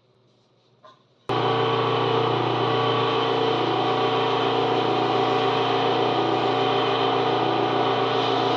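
Lathe motor running with a steady hum and whine. It comes on abruptly about a second in, after a faint click.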